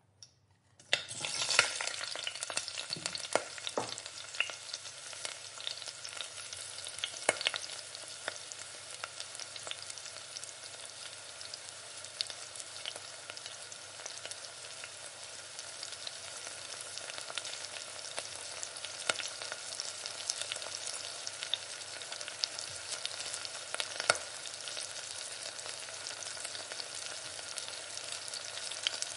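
Food frying in a pan: a dense, steady sizzle peppered with sharp crackling pops. It starts abruptly about a second in.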